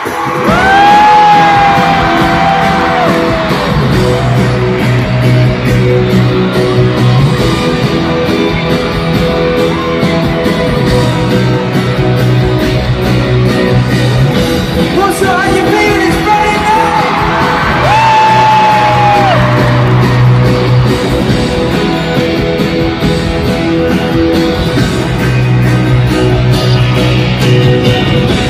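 Loud live pop music from a stadium concert sound system, with a singing voice holding long notes near the start and again about two-thirds through, over a steady bass line, and crowd yells.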